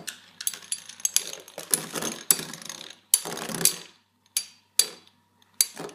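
Beyblade spinning tops Dark Bull and Striker clashing in battle: a dense run of sharp clicks and rattling hits, thinning to a few isolated clicks in the second half as the tops slow.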